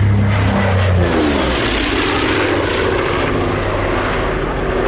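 A Douglas A-26B Invader's twin Pratt & Whitney R-2800 radial engines on a low fly-by. The engine drone drops in pitch as the aircraft passes, about a second in, and then turns into a broad engine and propeller noise.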